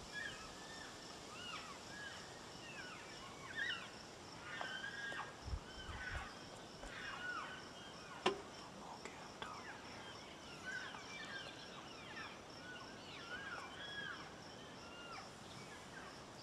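Elk cows and calves chirping and mewing: many short, high calls that rise and fall, overlapping one another. A single sharp click sounds about halfway through.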